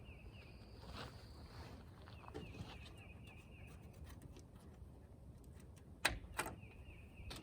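Wind rumbling on the microphone while a bird gives a repeated trill of rapid high chirps, heard three times. Two sharp clicks about six seconds in.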